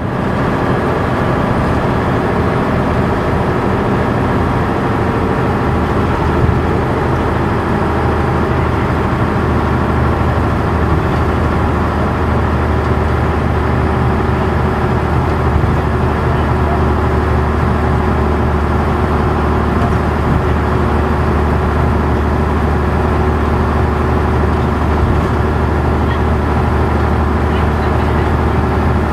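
A vintage bus under way, heard from inside the cabin: its engine makes a steady low drone with a few steady higher tones over road noise.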